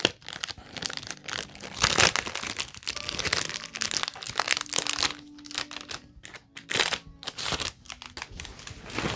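Plastic packaging being crinkled and pulled open by hand: irregular crackling and crunching, loudest about two seconds in and again near seven seconds.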